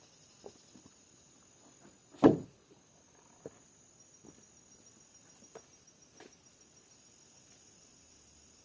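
Steady high insect drone, with scattered small knocks and one loud thump a little over two seconds in.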